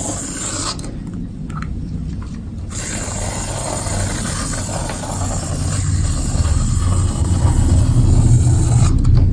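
Aerosol can of shaving foam spraying foam into a mound on slime: a hiss over a low rumble. The hiss drops out for a moment about a second in, and the rumble grows louder toward the end.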